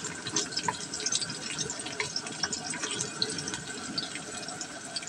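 Sliced red onions sizzling in hot cooking oil in a wok: a steady hiss dotted with many small crackling pops.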